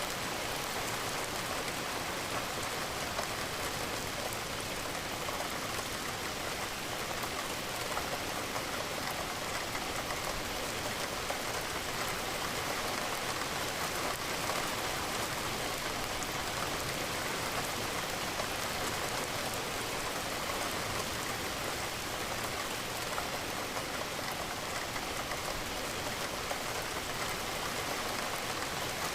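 Steady rain falling against a window, an even hiss that does not let up.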